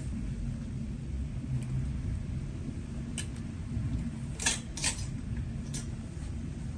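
Clothes hangers clicking against a metal clothing rail as garments are lifted off and hung back: a few sharp clicks, two close together a little after the middle, over a steady low hum.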